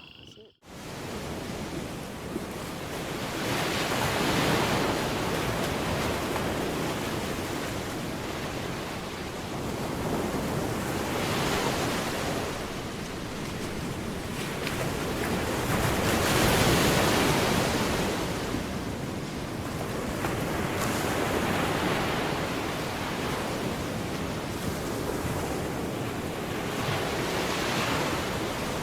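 Rushing surf-like noise of waves washing in, swelling and ebbing every five or six seconds.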